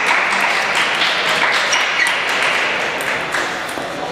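Ping-pong balls clicking off paddles and tables across a busy table tennis hall, over a dense wash of hall noise that slowly fades.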